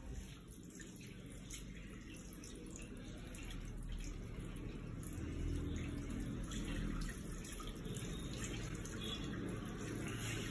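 Water from a salon shampoo basin's handheld sprayer hissing onto hair and splashing into the basin as the hair is rinsed, growing louder partway through.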